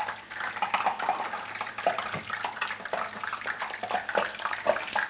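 Brussels sprouts deep-frying in oil at about 375°F in a stainless steel stockpot: a steady bubbling hiss with scattered pops and crackles.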